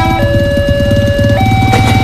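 Alkmaar-brand railway level-crossing warning siren sounding its two-tone alarm: a steady higher tone drops to a lower one just after the start, then steps back up a little over a second later. A low rumble runs underneath.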